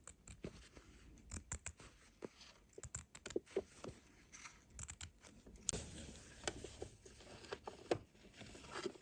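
Scissors cutting fabric, trimming a seam allowance close to its zigzag edge stitching: a run of faint, irregular snips.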